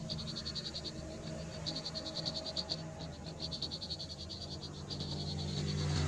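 Chorus of frogs calling: runs of rapid, high-pitched pulsed trills, each about a second long, repeating over and over above a low steady hum.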